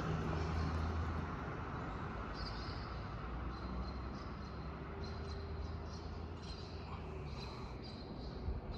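Street traffic: a vehicle engine running with a steady low hum, loudest for about the first second and then holding even, over general road noise.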